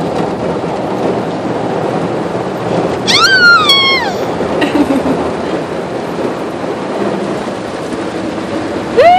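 Automatic car wash working over the car, heard from inside the cabin: a loud, steady rushing rumble of water and machinery on the body. About three seconds in, a toddler gives a short high squeal that rises and then falls, and a second, lower falling call starts right at the end.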